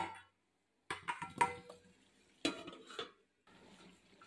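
Metal spatula clinking and scraping against a metal kadai while stirring mutton curry. It comes in two short bouts of clatter, about a second in and again near three seconds, with a brief metallic ring.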